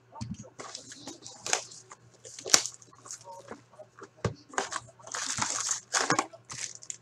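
Plastic shrink-wrap being ripped off a sealed cardboard box of hockey cards and crinkled, then the box flap torn open: a run of irregular crackling rips and crinkles, with a sharp rip about two and a half seconds in and a longer tearing stretch near the end.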